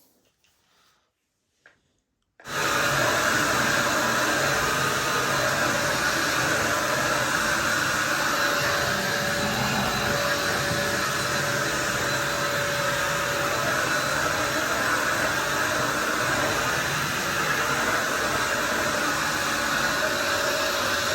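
Corded Arzum vacuum cleaner running at steady full suction, starting abruptly about two seconds in after near silence: an even rush of air with a steady whine.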